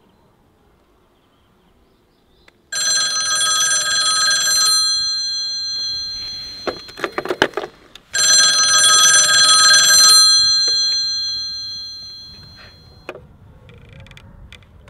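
Old rotary-dial telephone's bell ringing twice, each ring about two seconds long with a fading tail. A quick rattle of clicks comes between the rings, and a single click comes near the end.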